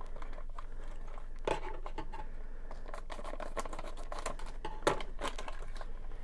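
Hands handling packaging and small plastic figure parts: crinkling and scratching with a run of sharp clicks, the loudest about a second and a half in and near five seconds, while the next Playmobil mystery figure is opened.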